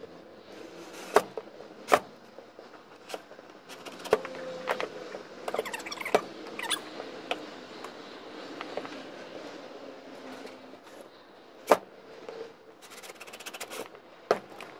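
Hand tools being handled on a wooden workbench: a cordless drill and small tools picked up and set down, giving scattered clicks and a few sharp knocks.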